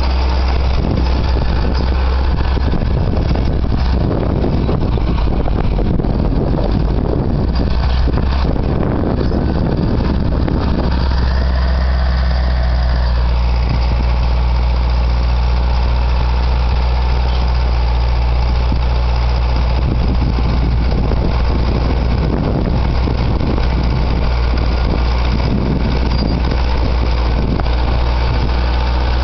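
Caterpillar D4D bulldozer's diesel engine running, with a strong low drone. It sounds rougher and noisier through the first ten seconds or so, then settles to a steadier hum.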